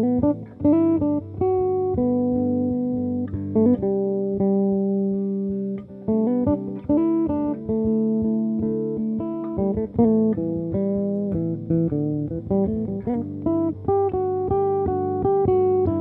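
Solo electric bass improvisation played through effects: a melodic line of plucked notes high on the neck, each ringing on into the next.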